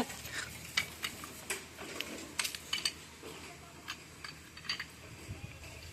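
Irregular light metallic clinks and taps of hand tools and steel parts being handled while a tractor's half-shaft assembly is taken apart. They are closer together in the first few seconds and sparser toward the end.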